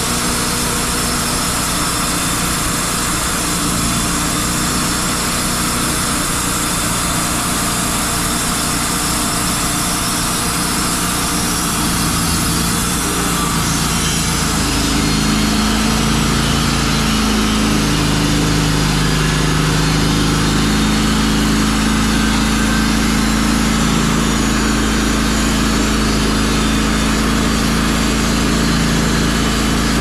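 Wood-Mizer LT35 portable band sawmill running, its engine steady under load while the band blade saws through a shagbark hickory log. About halfway through, a steadier low hum comes in and the sound grows slightly louder.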